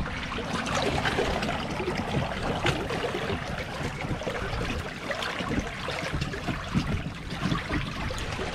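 River water trickling and splashing steadily along an inflatable boat floating downstream, with many small ticks.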